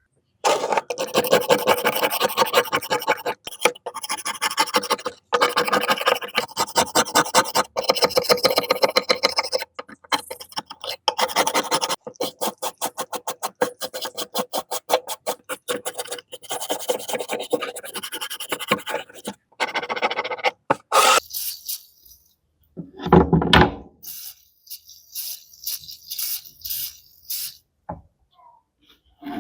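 Metal being rasped and scraped in quick repeated strokes, as in rust removal from an old betel nut cutter. Near the end the strokes thin out into separate scrapes, with one louder low thud.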